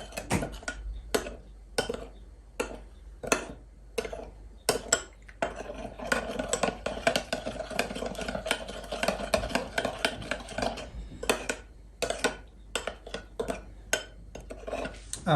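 A utensil stirring a thin sauce of soy sauce, oyster sauce and water in a bowl, clinking and scraping against the bowl in quick, irregular strokes.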